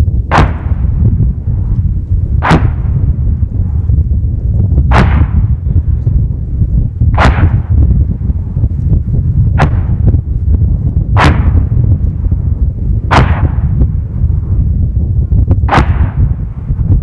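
Heavy weapons firing on a live-fire range: eight sharp reports, one every two to two and a half seconds, each trailing off in an echo. Strong wind rumbles on the microphone throughout.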